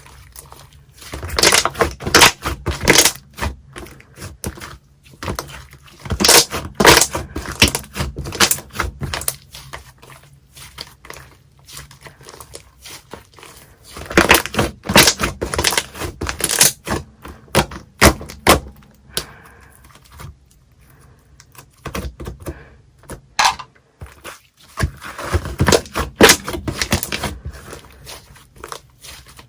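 Slime being squeezed and poked by hand, giving dense runs of sticky clicks and small air-bubble pops. The play comes in about five bouts separated by short pauses.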